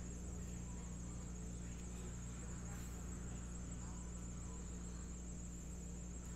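Steady electrical background hum with a constant high-pitched whine; nothing else stands out.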